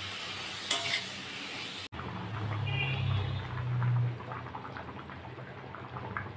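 Vegetables sizzling in oil as they are stirred in an iron kadai. After about two seconds this cuts to a curry bubbling at the boil, with a low hum underneath.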